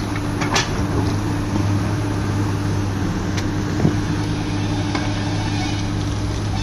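Hydraulic excavator's diesel engine running steadily under load as its bucket digs into soil and rubble, with a few short knocks.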